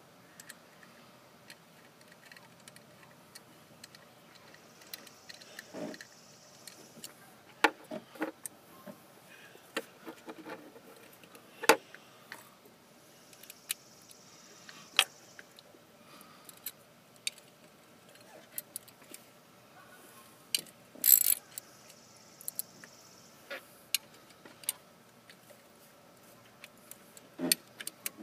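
Scattered sharp clicks and taps of small metal parts and a hand tool on the accelerator pedal assembly as it is reassembled, with a few louder knocks.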